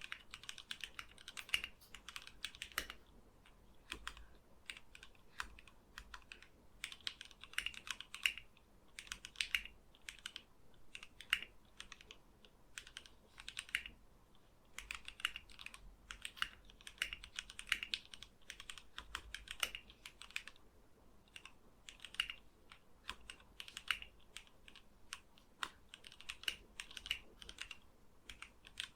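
Typing in quick bursts with short pauses on a custom mechanical keyboard: lubed and filmed Gateron KS-3 Black linear switches under ABS keycaps, on a plateless PCB in a gasket-mounted wooden case.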